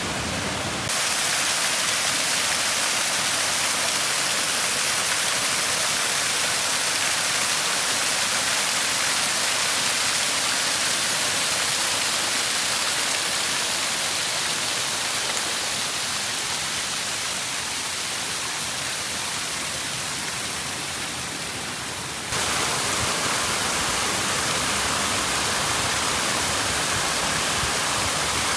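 Shiraito Falls, a wide curtain of many thin streams of water spilling over a moss-covered rock face into a pool, making a steady, even rushing and splashing. The sound changes abruptly twice, about a second in and about 22 seconds in.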